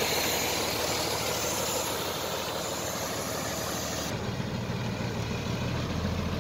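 Heavy truck's diesel engine idling steadily; about four seconds in the sound changes and the low engine rumble becomes stronger.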